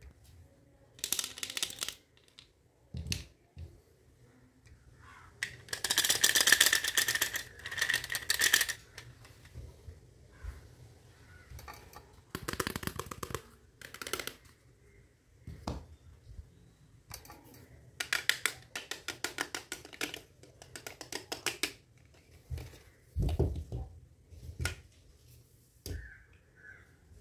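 Small plastic toy kitchen pieces handled by hand: separate bursts of rustling and rapid clicking as the hard plastic pieces rub and knock together, the longest and loudest burst a few seconds in.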